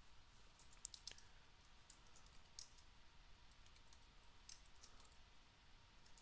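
Faint, irregular clicks of computer keyboard keys being typed, a short command tapped out a few keys at a time.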